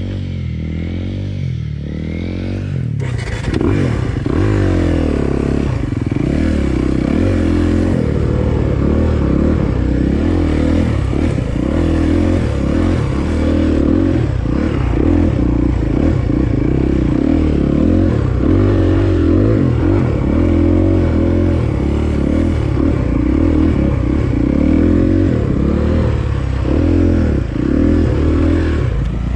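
Dirt bike engine running under way. It is steadier for the first few seconds, then revs up about three seconds in and keeps rising and falling with the throttle, with frequent knocks and rattles from the bike over rough trail.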